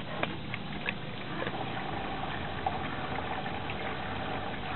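Hoover Electra 540 front-loading washing machine starting its cycle: a few light clicks, then about one and a half seconds in a steady hum and rush of water begins as it starts to fill.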